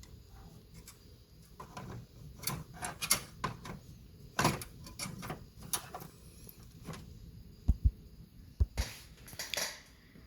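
Plastic case of a Macintosh IIfx being handled while it is opened and refitted: scattered clicks and knocks, a few scrapes of the lid sliding, and a couple of sharp thumps near the end, as the case refuses to go back on.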